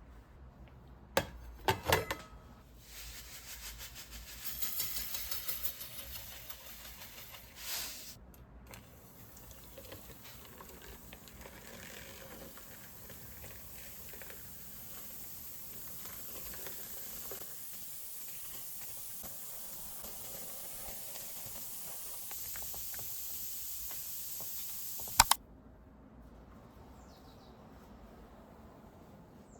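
A few clicks and knocks, then a long, steady hiss that slowly grows louder and is cut off abruptly with a sharp click about 25 seconds in.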